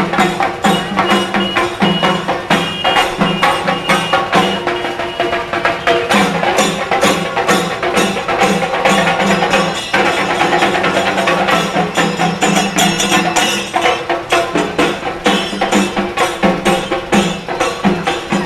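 Procession band playing: a fast, steady beat of sharp drum and percussion strikes over a held, pitched melody line.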